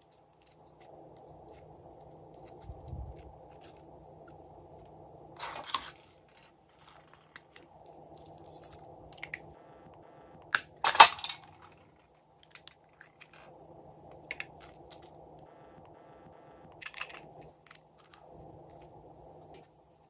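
Scattered light clicks and taps of fingers handling glitter foam stars and small plastic pieces over a glass slime tray, the loudest click about eleven seconds in, with a faint steady hum underneath.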